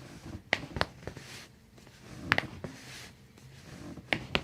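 Several sharp cracks of joints popping under a chiropractic adjustment: a quick pair about half a second in, another crack a couple of seconds in, and two more close together near the end.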